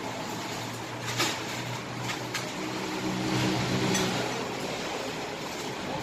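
A steady low motor hum over a background of noise, with a couple of faint clicks about one and two seconds in.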